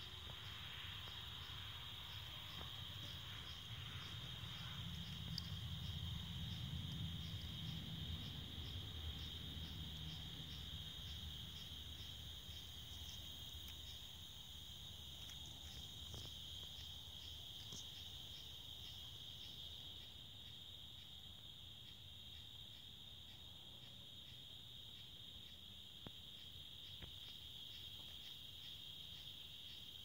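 Night-time insect chorus: a steady high trill, with a regular pulsing chirp from another insect above it. A low rumble sits under it in the first half and fades after about twelve seconds.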